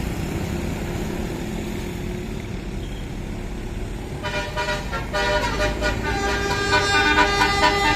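Bus engine running with a low rumble, then about four seconds in a basuri multi-tone telolet horn starts playing a tune, its notes stepping quickly from pitch to pitch and getting louder.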